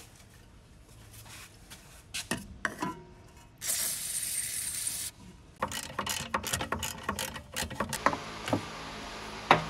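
An aerosol can of WD-40 spraying penetrating oil through its straw onto the exhaust joint bolts, a hiss lasting about a second and a half, followed by the rapid clicking of a ratchet wrench working the exhaust bolts loose.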